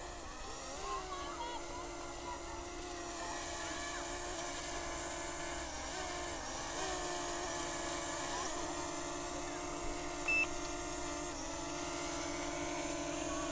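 DJI Mini 2 drone's propellers humming in flight, a steady buzzing tone whose pitch wavers as it manoeuvres and then holds steady, growing slightly louder. A single short beep about ten seconds in.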